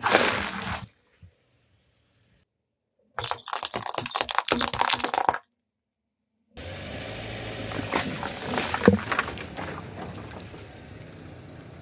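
Car tyre crushing things on asphalt in three short bursts. First a crunch as it flattens a bag of liquid-filled plastic toy tubes, then a quick run of sharp plastic cracks, then a steady wet hiss with a few loud pops as it rolls through a puddle of spilled liquid and crushed bits.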